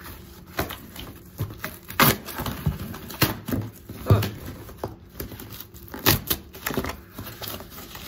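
Cardboard shipping box being opened by hand: irregular scrapes, rips and knocks of corrugated cardboard and packing tape, about ten separate sounds.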